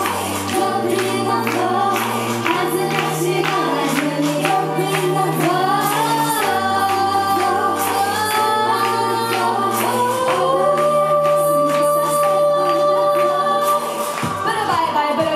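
Idol pop song over a PA: female vocals singing over a backing track with a steady beat and a stepping bass line. A long held sung note comes about ten seconds in.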